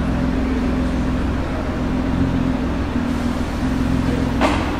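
Nissan GT-R R35's twin-turbo V6 idling steadily. A short sharp click sounds once near the end.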